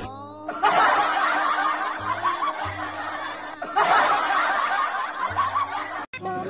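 Crowd laughter in two bouts, one starting about half a second in and another about four seconds in, each fading away. It sounds like a laugh track added over the cat clip.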